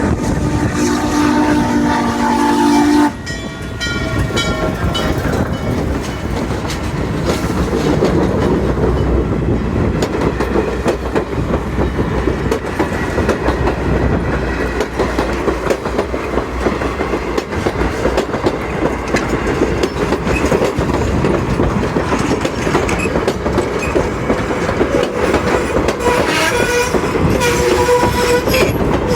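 A train whistle sounds a chord of several notes and cuts off sharply about three seconds in. Then the train passes close by, rumbling steadily with wheels clicking over the rail joints.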